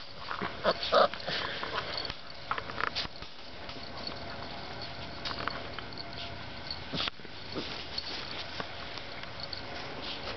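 Young puppies making short whimpers and yips, several close together in the first second or so, then only now and then.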